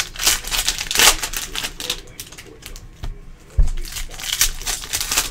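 Foil-wrapped Panini Prizm basketball card packs being torn open by hand: a run of crinkles and crackles, with a louder rip about a second in and a low knock about three and a half seconds in.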